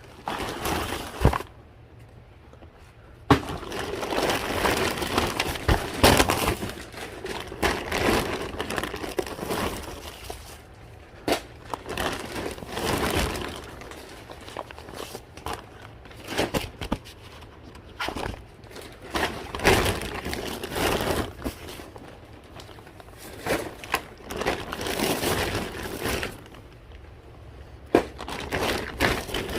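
Irregular rustling and crinkling of bags and packaging, with sharp knocks and clatters as shoes and other items are handled and tossed into bins.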